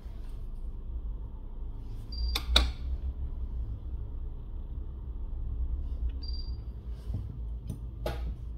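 A glass phone back cover being handled and set down onto the metal frame: two sharp clicks in quick succession about two and a half seconds in, another click near the end, over a steady low hum.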